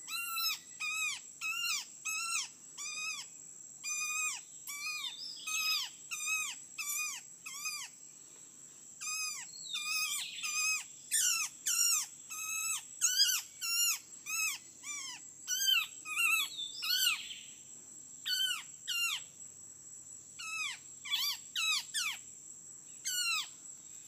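A small bird caught in a mist net, held in the hand while being untangled, calls over and over: short arched calls, about one or two a second, broken by a few brief pauses. A steady high insect whine runs underneath.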